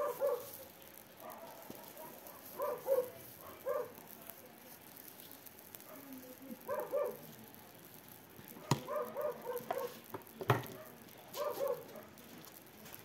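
Short animal calls, often in quick pairs, repeated every second or two. There are two sharp knocks in the second half.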